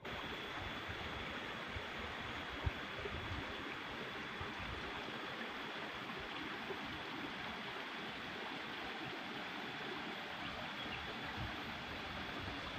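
Steady rush of running water from the irrigation flowing through terraced rice paddies, with one sharp knock about two and a half seconds in.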